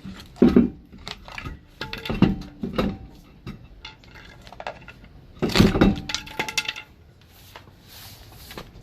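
Metal clanks and scraping as a steel pry bar works a heavy truck wheel off its hub. There are ringing clanks about half a second in, a run of them around two to three seconds, and the loudest about five and a half seconds in.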